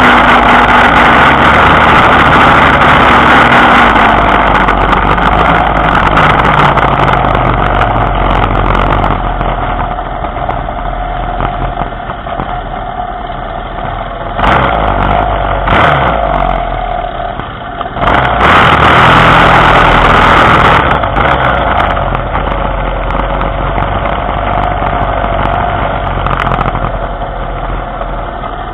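Small engine of a motorized bicycle running steadily while riding, its loudness easing off and then swelling again.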